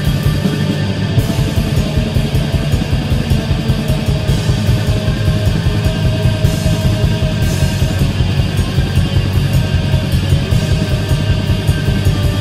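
Black metal recording: distorted guitars held in a dense wall over fast, tightly packed drumming.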